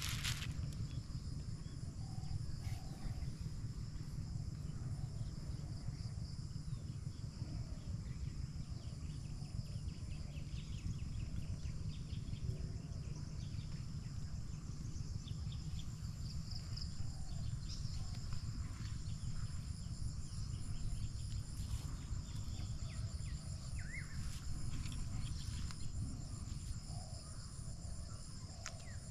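Insects chirping steadily in several high-pitched continuous trills, over a low steady rumble.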